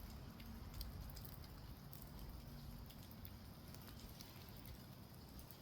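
Faint patter of light rain, an even hiss with scattered small ticks.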